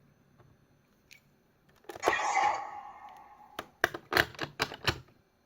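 Sound effects from a Geardalinger toy transformation gun: about two seconds in, a loud swishing burst with a ringing tone that fades over a second, then a quick run of sharp clicks.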